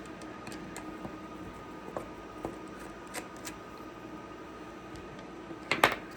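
Light clicks and taps of small parts and tools being handled while a 3D printer's fan shroud is taken apart, with a sharper clatter near the end, over a steady faint hum.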